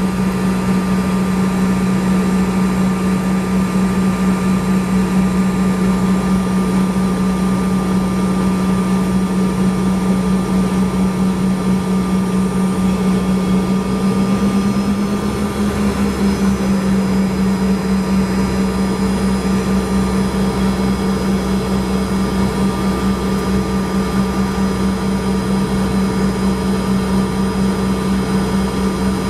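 Cabin drone of a CRJ-200 taxiing, its two rear-mounted GE CF34 turbofans at idle: a steady hum with a faint high whine. About halfway through, the hum rises slightly in pitch and a deeper rumble joins in and stays.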